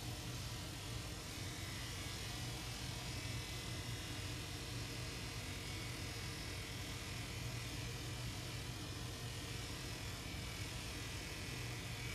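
Electric dog grooming clippers running with a steady, even hum.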